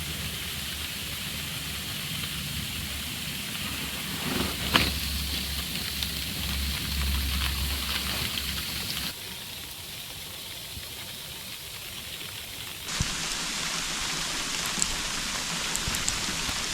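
Steady hiss of rain falling, with one sharp tap about five seconds in; the hiss drops abruptly about nine seconds in and returns about four seconds later.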